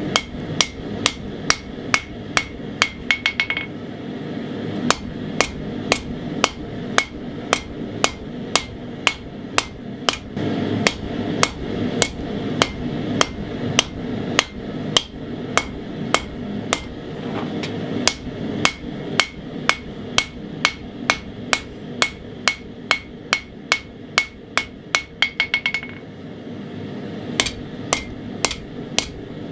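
Hand hammer striking hot 80CrV2 steel on an anvil, forging the point of a knife blade, at about two blows a second. Twice, near the start and near the end, the hammer breaks into a quick run of light ringing taps, each followed by a short pause.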